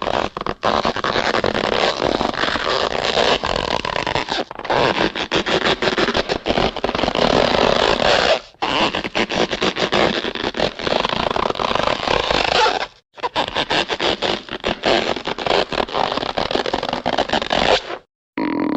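Cartoon rubber-stretch sound effects: a series of creaky, rasping stretches, each lasting about four seconds, with short breaks between them.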